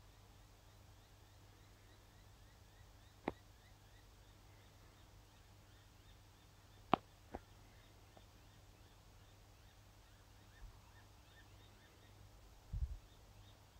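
Quiet outdoor ambience with faint, high, repeated chirping, broken by a sharp click about three seconds in, two more close together about seven seconds in, and a low thump near the end.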